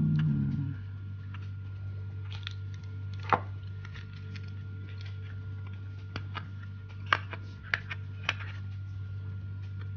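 A few sharp small clicks and taps of hands working on a phone's small parts, spread out over several seconds, over a steady low electrical hum.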